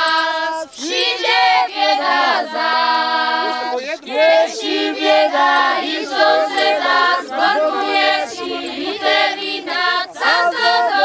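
A group of voices, mostly women's, singing a folk song together in chorus, with long held notes.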